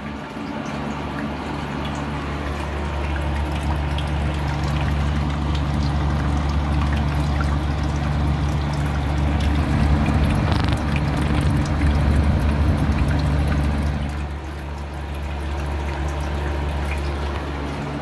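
Homemade ultrasonic humidifier running: a small water pump's discharge line pours and trickles steadily into the bucket sump, over the steady hum of the unit's 80-watt AC fan motor. The water sound is louder from about four seconds in to about fourteen seconds in.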